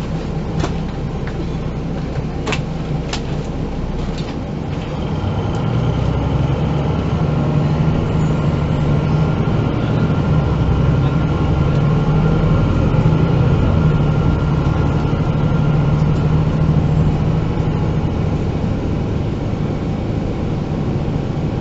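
Diesel engine of a MAN NG 313 articulated city bus, heard from inside the bus. A steady low engine hum, with a few sharp clicks in the first three seconds. About five seconds in the engine gets louder under load and a steady whine joins it, easing off a little near the end.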